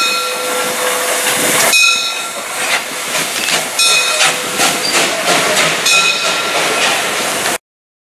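Prussian P8 steam locomotive (38 2267) working through the station with steam hissing. A sustained high ringing tone sounds over the first couple of seconds, then the exhaust chuffs in a regular beat of about two a second. The sound cuts off abruptly near the end.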